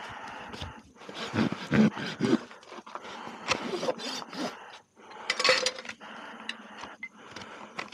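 Farrier's steel hoof rasp filing across a horse's hoof horn: several rough scraping strokes, which stop about six seconds in.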